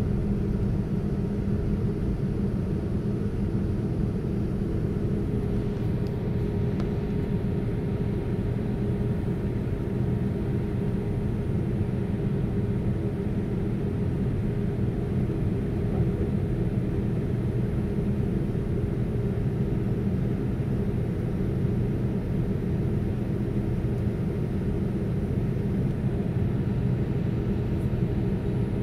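Cabin noise of an Airbus A319-132 on the ground, its IAE V2500 engines running at low thrust: a steady low hum with a faint steady whine above it, holding level without spooling up.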